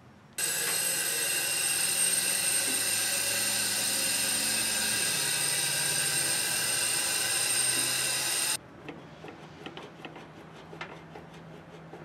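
A machine motor runs steadily with a high whine and hiss for about eight seconds, starting and cutting off abruptly; a lower hum in it drops in pitch about halfway through. Faint clicks and knocks follow.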